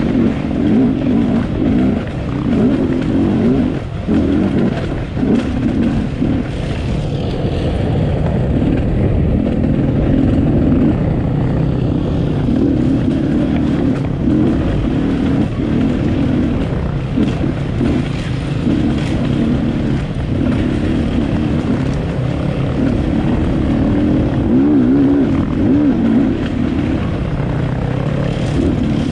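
Enduro motorcycle engine running hard close to the microphone, its pitch rising and falling constantly with the throttle.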